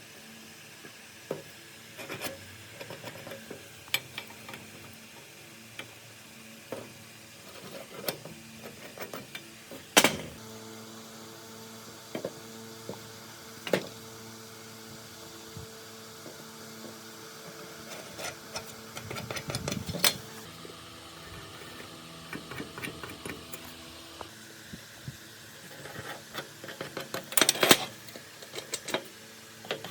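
Metal parts and hand tools clinking, tapping and knocking at irregular intervals over a steady low machine hum; the sharpest knocks come about ten and twenty seconds in, with a quick flurry near the end.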